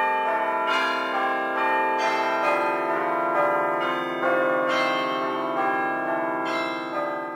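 Church bells pealing, notes struck one after another so their ringing tones overlap and build up, then slowly die away near the end.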